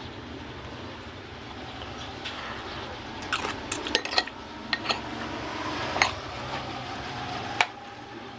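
Eating utensils clinking against a plate during a meal: a scatter of short, sharp clinks starting about three seconds in, over a steady low hum.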